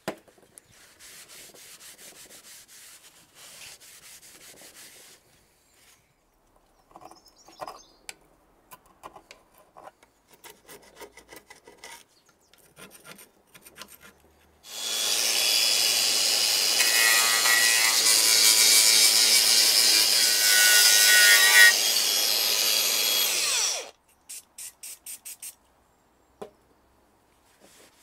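A power tool with a wire wheel running steadily against the engine's oil separator for about nine seconds in the second half, then stopping abruptly. It is stripping the heat-scorched finish back to bare metal. Before it come quieter scraping sounds and scattered clicks.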